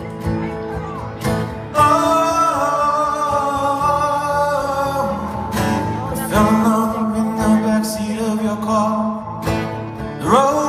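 Live solo acoustic guitar being strummed, with a man singing long held notes over it through the microphone.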